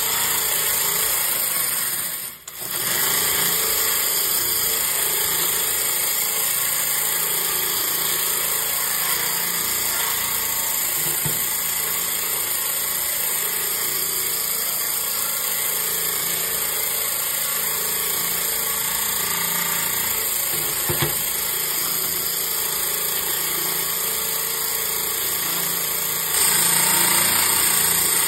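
Homemade electric-motor bandsaw blade cleaner running while a dirty sawmill bandsaw blade is held against it and scrubbed: a steady whirring with a heavy hiss. It drops out briefly about two and a half seconds in and gets louder for the last couple of seconds.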